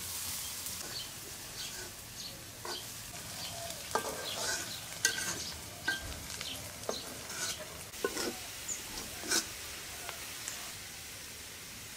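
Cooking in a pot: a steady sizzling hiss with scattered clinks and knocks of a utensil against the pot.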